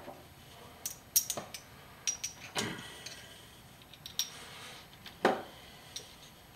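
Small metal parts and tools being handled on a wooden workbench: a scatter of separate clinks and knocks, the loudest about five seconds in.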